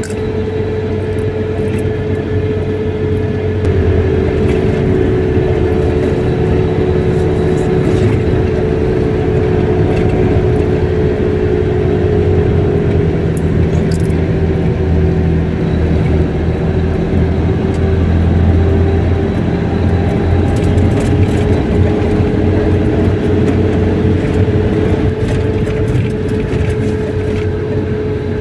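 Car driving along a road: a steady engine hum with road noise, its pitch drifting only slightly.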